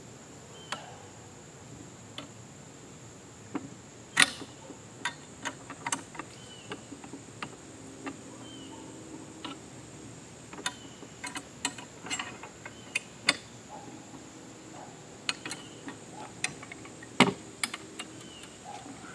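Irregular metal clicks and clinks as nuts are threaded and bolts tightened by hand on a metal target-stand frame, the sharpest about four seconds in and near the end. A steady high insect buzz runs behind.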